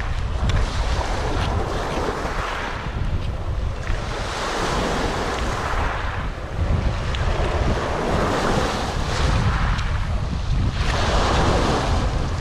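Small waves breaking and washing up over a pebble beach, in surges every few seconds, with wind buffeting the microphone.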